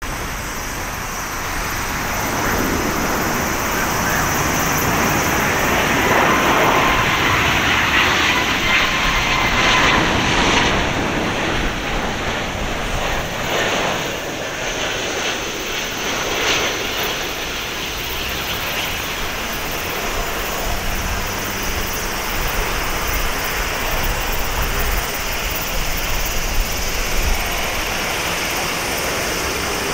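Boeing 777-200ER's twin Rolls-Royce Trent 892 turbofans on landing approach: the jet noise swells to a loud rush with a high whine as the airliner passes low, then settles into a steadier rumble as it touches down and rolls out on the runway.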